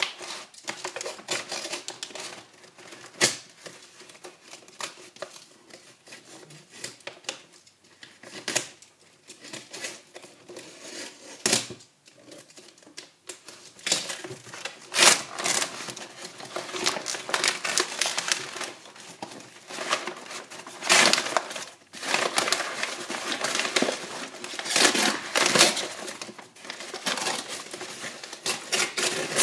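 Plastic wrap and paper wrapping of a parcel crinkling and crackling as it is unwrapped by hand, in irregular handling noises that get busier and louder from about halfway through.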